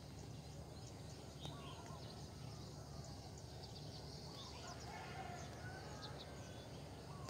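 Faint outdoor ambience: scattered distant bird chirps and, about five seconds in, a distant call from domestic fowl, over a low steady rumble.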